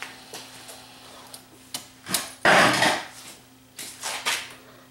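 Sony DTC-75ES DAT deck's tape transport, with its cover off, loading and threading a cassette: a run of mechanical clicks and clunks. The loudest part is a half-second mechanical rasp about two and a half seconds in, followed by a few more clunks around four seconds.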